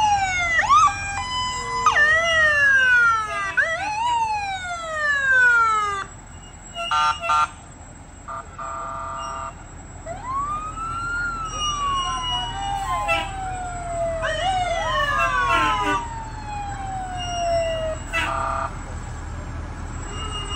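Emergency vehicle sirens sounding, several overlapping sweeps that rise quickly and fall. A few short steady blasts come between them, then a slower wail sweeps up and down, over a low rumble.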